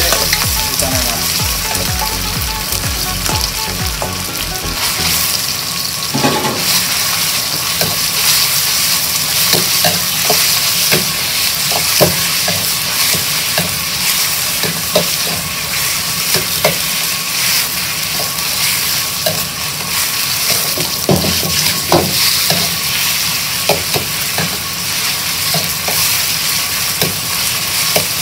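Raw chicken pieces sizzling in hot oil in an iron wok, stir-fried with a metal wok ladle that clinks and scrapes against the pan many times over a steady frying hiss.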